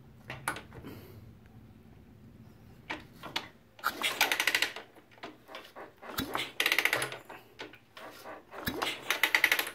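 Suzuki Thunder single-cylinder engine being kicked over on the kick-starter without starting, its exhaust pipe off. There are three kicks, each heard as a short run of rapid puffs from the open exhaust port, blowing out loosened carbon flakes.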